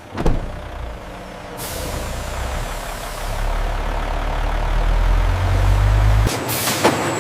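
A heavy truck's engine running with a loud air hiss, its low rumble building and then cutting off sharply about six seconds in, with a knock near the start and another near the end.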